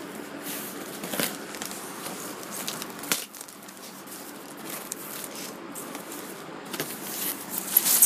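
Cardboard box flaps being handled and styrofoam packing peanuts rustling, with scattered crackles and clicks, getting louder near the end as a hand digs into the peanuts.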